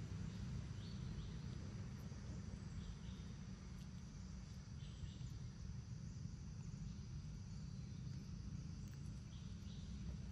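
Forest background: a steady low rumble with faint, short high chirps every second or so.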